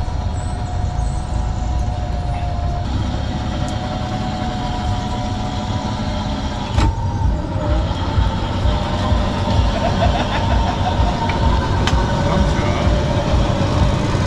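Low rumble and a steady whine from a chopped, ground-hugging battery-electric Trabant creeping slowly past. The whine dips in pitch and comes back up a little after halfway, just after a sharp click.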